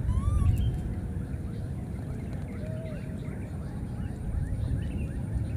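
Baby monkeys giving short, squeaky calls: a rising call right at the start and an arched call about halfway through, among faint short chirps, over a steady low rumble.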